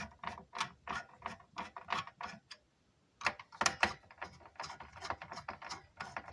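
Hand screwdriver turning screws during a PC build: a run of sharp clicks about three a second, with a brief pause about halfway through.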